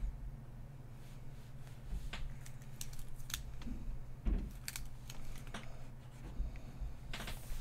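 Scattered light clicks and taps at a digital drawing desk, from a stylus on a pen tablet and keyboard keys, irregular and a dozen or so, over a steady low hum. A brief scratchy rustle comes near the end.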